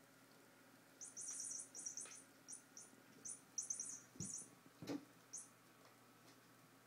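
Maine Coon cats playing on a wooden floor: irregular clusters of quick, high, scratchy skitters, from the first second to about five and a half seconds in. Two soft thumps come a little after four seconds and just before five.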